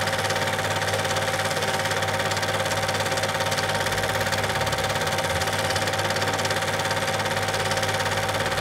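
Super 8 film projector running with a steady, fast mechanical clatter and whir as the film passes through the gate.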